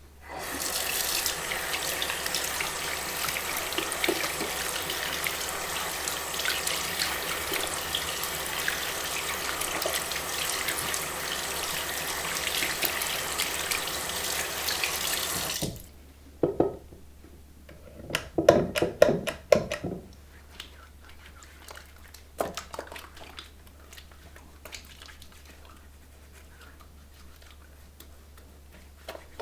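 Tap water running into a sink while hands are washed under it, then the tap shuts off sharply about halfway through. A few clicks and about two seconds of wet hand sounds follow, then a few scattered drips.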